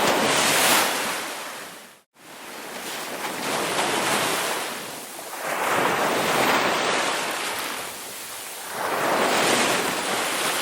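Ocean surf: waves breaking and washing back, rising and falling in several swells, with a brief dropout about two seconds in.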